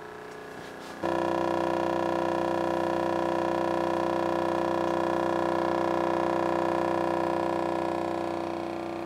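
Homemade 'strange engine' heat engine running on a hot plate, its balloon diaphragm with magnets on top oscillating to give a steady pitched drone. The drone starts suddenly about a second in and dies away near the end.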